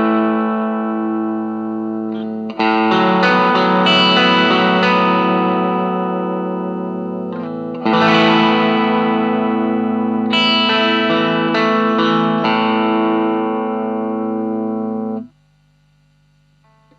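Electric guitar (Fender Stratocaster) through an Ibanez Tube Screamer Mini overdrive pedal into a small Marshall amp, strumming overdriven chords and letting them ring out. New strums come about 2.5 and 8 seconds in, and the chord is cut off about 15 seconds in, leaving a faint amp hum.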